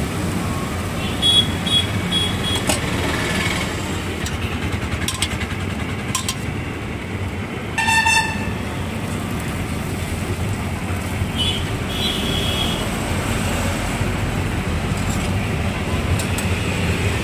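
Steady road traffic running past, with vehicle horns honking several times: a run of short high beeps in the first few seconds, one louder horn blast about eight seconds in, and more beeps around twelve seconds.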